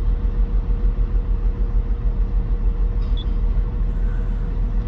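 Komatsu PC800 excavator's diesel engine idling: a steady low rumble. A short high beep sounds about three seconds in.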